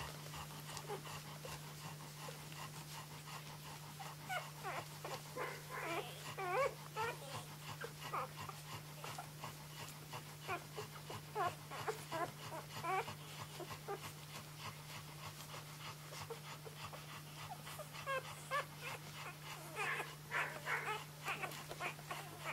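Newborn flat-coated retriever puppies, three days old, squeaking and whimpering in short, high, gliding cries while they nurse, several at a time and in bursts.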